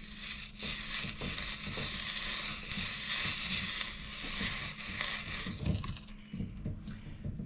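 A hissing sizzle lasting about five and a half seconds, then dying away: a freshly soldered copper pipe joint being cooled with water.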